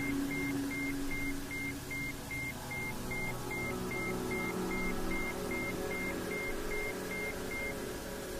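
Ambient meditation drone: sustained low and middle tones held over a steady hiss, with a run of about twenty short high beeps, two and a half a second, that stops shortly before the end.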